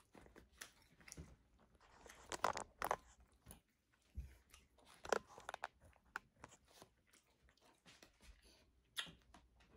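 A person chewing and biting fast food close to a microphone, with scattered crisp crunches and wet mouth sounds; the sharpest crunches come about two and a half seconds in and again near five seconds.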